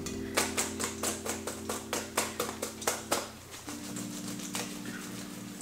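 Parboiled potatoes shaken in a stainless steel colander, knocking against each other and the metal in a rapid run of soft clacks, several a second, that thins out after about three and a half seconds. This is chuffing: roughing up the potatoes' edges so they crisp in the oven.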